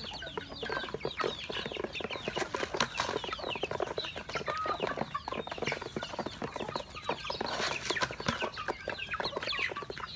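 A flock of young chickens cheeping continuously with many short, high, falling calls overlapping several times a second, while their beaks tap rapidly on grain and a plastic feed dish as they peck.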